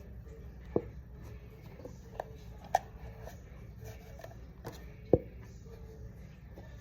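Slime-making supplies being handled on a tabletop: a few sharp light knocks and clicks, the loudest two about a second in and about five seconds in, over a low steady hum.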